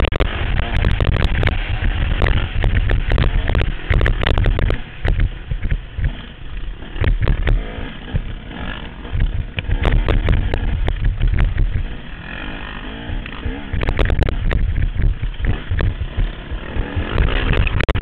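Four-stroke motocross bike engine revving up and down under riding, heard through a helmet-mounted camera, with heavy wind rumble and knocks on the microphone.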